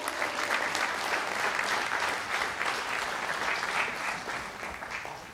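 Audience applauding: many hands clapping together, steady at first, then dying away near the end.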